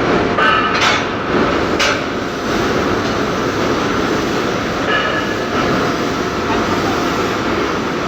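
Industrial machine running with a steady mechanical din, with a few sharp knocks in the first two seconds.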